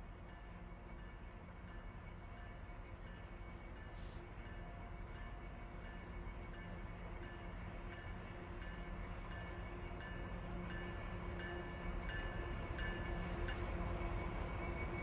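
Freight train approaching, its low rumble growing steadily louder. Evenly spaced ringing strikes, about two a second, sound over it, typical of a grade-crossing bell, and stop shortly before the end.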